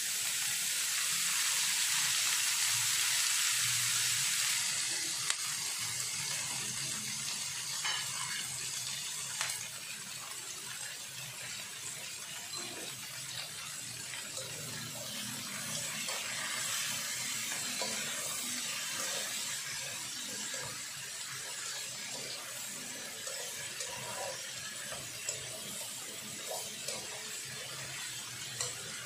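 Diced zucchini and bell pepper hitting hot oil in a nonstick wok: a loud burst of sizzling that eases after about five seconds into a steady, softer sizzle. A plastic spatula scrapes and taps now and then as the vegetables are stirred.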